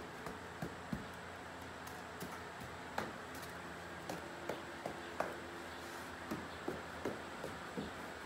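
A foam pool noodle tapping and slapping against a saddled horse: about a dozen short, light taps at irregular intervals.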